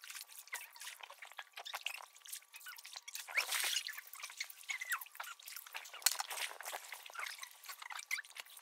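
Pool water splashing and dripping around an inflatable dinghy as people move in and out of it, with a louder splash about three and a half seconds in.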